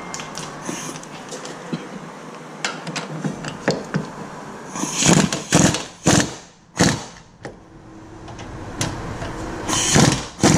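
Pneumatic impact wrench hammering in short bursts as it drives the 17 mm brake caliper bracket bolts tight, several bursts about five to seven seconds in and another near the end. Lighter clicks and knocks of parts and tools being handled come before the first burst.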